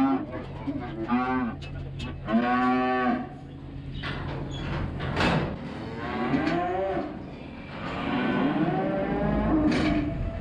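Young dairy heifer calves, about three months old, mooing again and again, with the longest, loudest call a couple of seconds in and another long call near the end. A single sharp knock sounds about halfway through.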